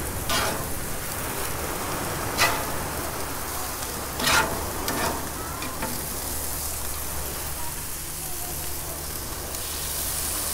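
Steaks and burgers sizzling on the grates of a gas grill. A few short metallic scrapes and clacks come from a metal spatula against the grates as the meat is handled, the loudest about two and four seconds in.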